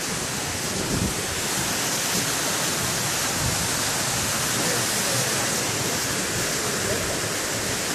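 Steady rushing of the Monachil river flowing through the rocky gorge below the bridge.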